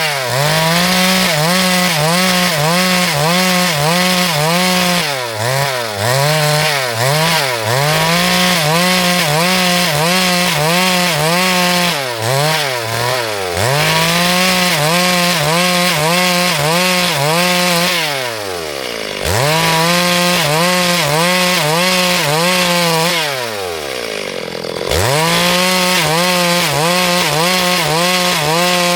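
Two-stroke chainsaw running hard, its pitch dipping and recovering about once a second as it works through the cut. Twice, about two-thirds of the way through and again a few seconds later, it drops toward idle and then revs back up.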